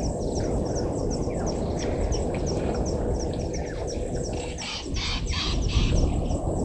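Birds calling in the bush, with one short high chirp repeating evenly about three to four times a second and a louder cluster of calls about five seconds in, over a steady low rushing noise.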